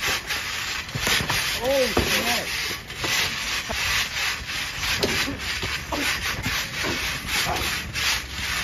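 Rubbing, scuffing noise with scattered dull thumps as players move and jump on a trampoline mat during one-on-one basketball, with a short vocal cry about two seconds in.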